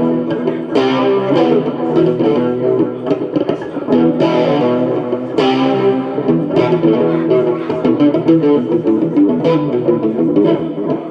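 Guitar playing a continuous run of notes, without a break.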